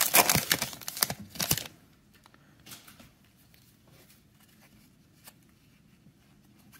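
Plastic wrapper of a trading-card cello pack crinkling and tearing as it is ripped open, stopping abruptly after about a second and a half. Then only a few faint ticks as the cards are handled.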